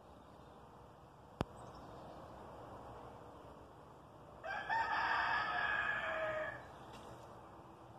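A rooster crows once, a single call of about two seconds, a little past the middle. A single sharp click comes about a second and a half in.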